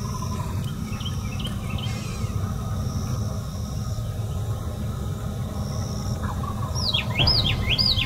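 Outdoor ambience: a steady low rumble with songbirds calling. A few faint chirps come early, and near the end a bird gives about four quick, loud slurred whistles, each dropping and rising again.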